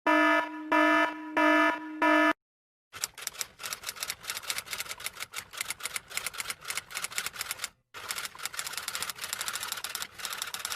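Comedy sound effects: a buzzer-like tone pulses four times, then after a short pause comes rapid, even clicking in two long runs, like typewriter keys.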